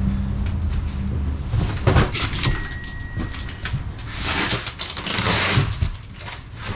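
Cardboard boxes being handled on a trailer floor: a knock as a box is set down about two seconds in, then scraping and rustling of cardboard as boxes are shifted and one is opened. A low hum fades out about a second in.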